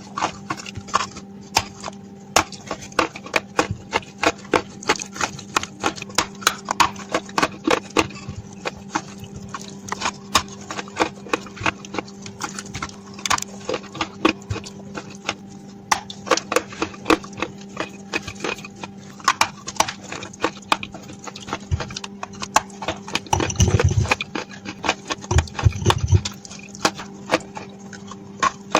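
Close-miked crunching of dry edible clay being bitten and chewed: a rapid, uneven run of sharp cracks and crunches, with a heavier, deeper stretch of chewing a little before the end. A steady low hum runs underneath.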